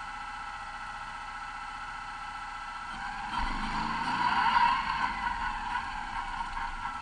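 Off-road racing buggy's engine idling with a steady whine, then revving up about three seconds in as the buggy moves off, easing back near the end. Heard from a camera mounted on the buggy's frame.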